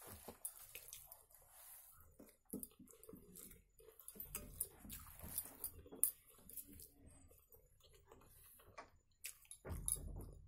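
Close-up eating by hand: fingers squishing and mixing rice against a steel plate, with wet chewing and mouth smacks as many small irregular clicks. A louder burst of chewing comes near the end.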